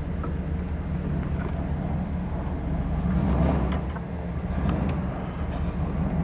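Steady low rumble of a vehicle engine and road noise, with no sudden events.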